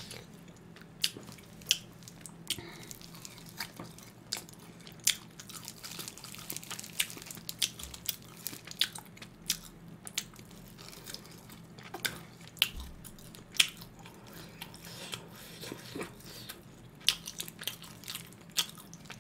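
Close-miked eating: grilled pork rib (jjok galbi) meat being bitten and chewed, with many irregular sharp mouth clicks and smacks.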